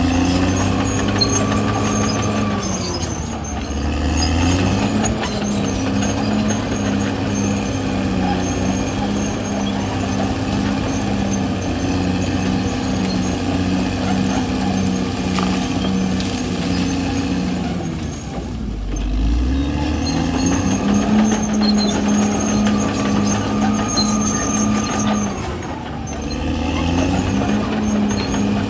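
CAT D6R XL crawler bulldozer's diesel engine running steadily while the dozer works through brush. Its pitch drops and comes back up three times.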